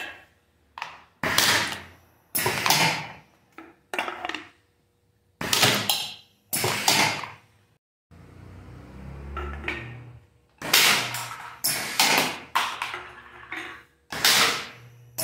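Homemade foot-pedal pneumatic can crusher cycling: a string of sudden clacks from the air cylinder and valve, each trailing off over about half a second, as cans are crushed. A low rumble fills a lull near the middle.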